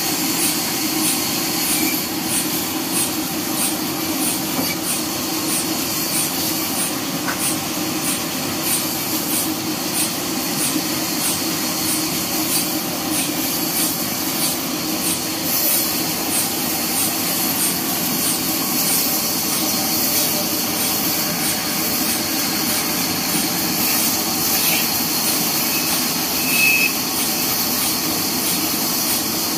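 Horizontal band sawmill running and sawing lengthwise through a neem log, with a steady machine noise and hiss. A faint high tick repeats about twice a second, and there is a short high squeak near the end.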